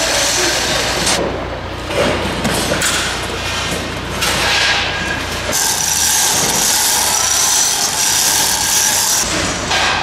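Equipment being handled during a tent teardown: rubbing, scraping and knocking, with the mix changing abruptly several times.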